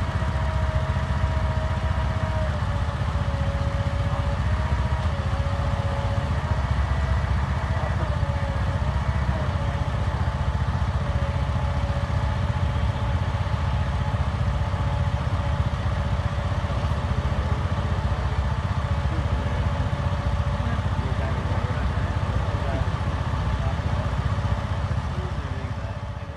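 Engine idling steadily with a low rumble and a thin wavering whine above it, fading out near the end.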